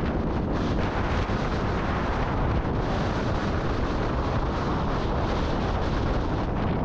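Wind blowing hard across the microphone during a severe thunderstorm, a steady low noise.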